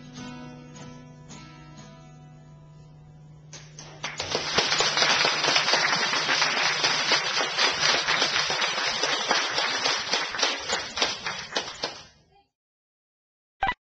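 A final guitar chord rings out and fades as the song ends, then the audience breaks into loud applause about four seconds in. The clapping cuts off abruptly near the end, followed by a short electronic tone.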